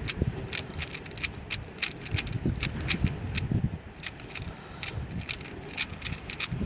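Plastic Rubik's Cube layers being twisted quickly by hand during a speed solve: a rapid, irregular run of sharp clicks, about three a second, over a low rumble.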